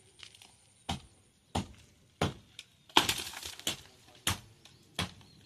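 Seven sharp, clanking strikes at an even pace, about one every two-thirds of a second, from workers knocking loose the shuttering under a freshly cured concrete roof slab.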